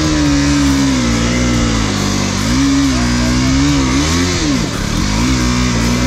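Motorcycle engine running, its pitch rising and falling as the throttle is blipped, with background music.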